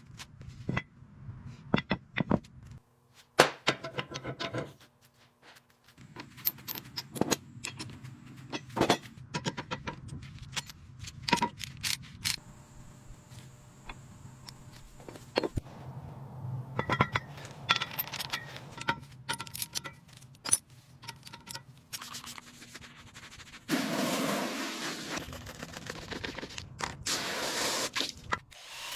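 Workshop sounds of tools and metal parts: a string of sharp clicks, clinks and scrapes, then a steady rasping, rubbing noise about four seconds before the end, like sanding.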